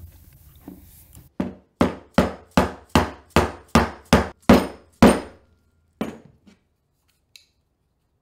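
A run of about ten quick, even hammer blows, then one more after a short pause: a steel hex nut being driven into the bore of a 3D-printed plastic headset-press body.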